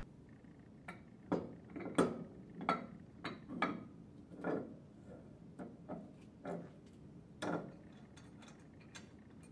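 Irregular metal clicks and knocks, a dozen or so over about seven seconds, as the cast-iron head and idler gear of an internal gear pump are worked into place on the pump casing. Some knocks ring briefly.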